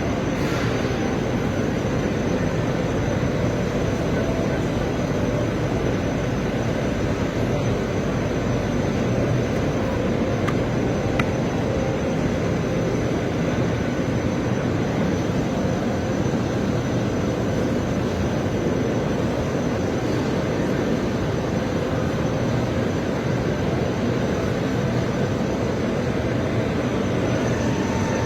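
Steady, unbroken noise of an exhibition hall with machinery running, weighted low, with a faint steady high whine throughout and a small click about eleven seconds in.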